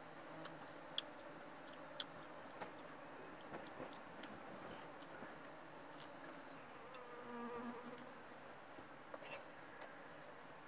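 Steady high-pitched drone of insects, with part of the drone dropping out about two-thirds of the way through. A few sharp clicks stand out, the loudest about one and two seconds in.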